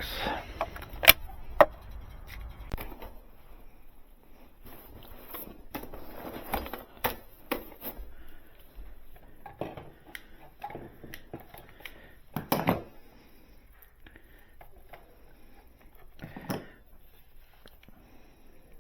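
Hands working with small tools and gear: scattered sharp clicks and knocks over light rustling, two loud clicks about a second in.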